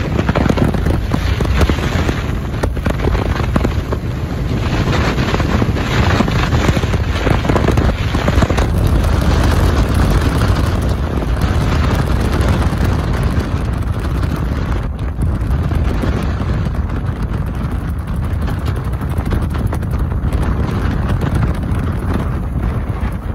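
Royal Enfield Bullet single-cylinder motorcycle engine running under way with a loud exhaust, letting off a string of sharp cracks over the first third before settling into a steadier run. Wind buffets the microphone throughout.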